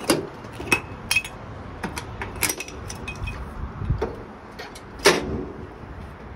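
Metal clinks and knocks from semi-truck air-line gladhands and line fittings being unhooked from the trailer and handled: a string of sharp, irregular clicks, with the heaviest knock about five seconds in.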